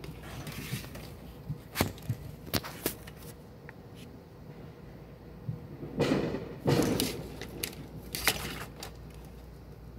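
Fireworks going off, with bangs like gunshots: a few sharp cracks about two seconds in, two longer, louder blasts about six seconds in, then more cracks near the end.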